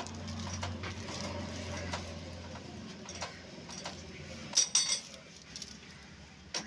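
Irregular metallic clinks and taps from hands working on an old single-cylinder diesel engine, over a low hum; a quick cluster of louder clinks comes a little past halfway.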